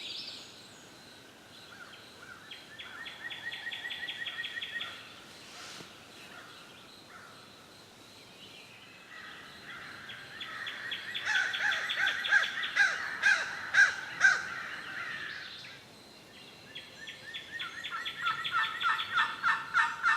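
Wild turkeys calling: three runs of rapid rattling calls, the longest and loudest about halfway through, and another starting near the end.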